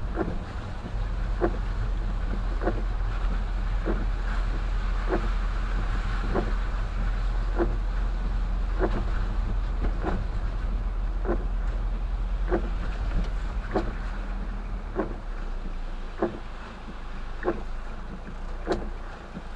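Windshield wipers sweeping at a steady pace, with a short knock at each pass about every second and a quarter, over the car's engine and road noise. The rumble eases about three-quarters of the way through as the car slows to a stop.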